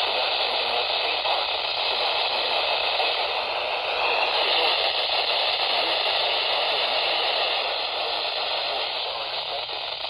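Radio receiver putting out steady static hiss, a noisy channel with no clear voice coming through.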